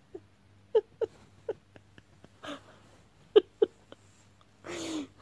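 A girl making short, high whimpering sobs, about six sharp yelps spread out, then a longer breathy sob with a falling pitch near the end: put-on, pretend crying.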